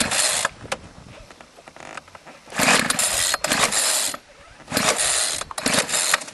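Two-stroke weed-whacker engine on a model boat being pull-started: about four short rasping pulls of the recoil starter with gaps between, the engine not yet running.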